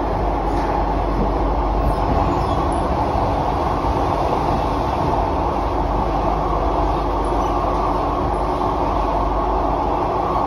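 Kawasaki–Sifang C151A electric train running at a steady speed through a tunnel, heard from inside the car: a constant rumble and rush of wheels on rail and running gear.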